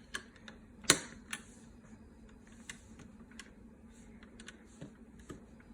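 Plastic Snap Circuits parts clicking and clattering as they are handled and snapped onto the base grid. The clicks are scattered and irregular, and the loudest comes about a second in.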